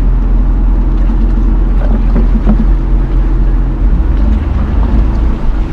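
Jeep Cherokee Trailhawk running slowly along a rough trail: a steady low engine hum under a heavy rumble, with a few knocks about two seconds in.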